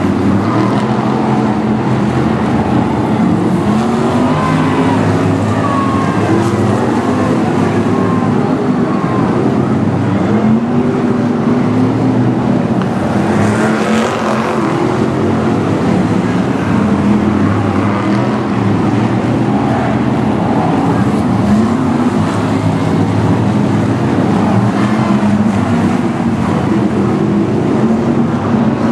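BriSCA F1 stock cars' V8 engines racing together on a shale oval, their engine notes rising and falling as the cars accelerate and lift around the track.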